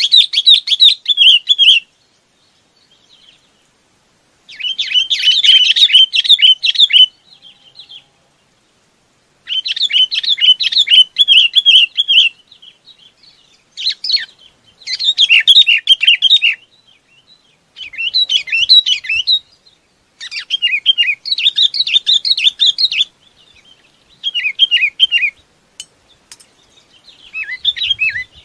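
Bulbul (chim bông lau) giving its flock-gathering call: phrases of quick, bubbly, warbling notes, each lasting one to three seconds, repeated about eight times with short pauses in between.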